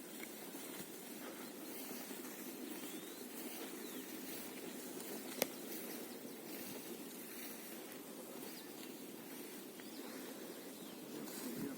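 Quiet outdoor ambience with a steady low rustle, a few faint bird calls, and one sharp click about five and a half seconds in.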